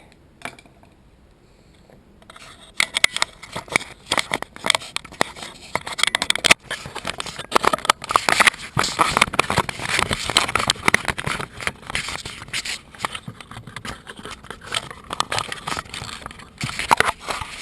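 Metal parts of a dry, ungreased bicycle crank bearing being scraped and worked loose by hand, with many irregular sharp clicks among the scraping from about two seconds in.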